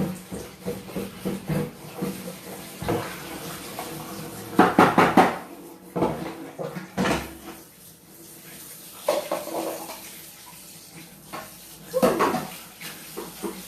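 Bowls and kitchen utensils clattering and knocking as they are handled, with the loudest knocks about five seconds in and again about twelve seconds in.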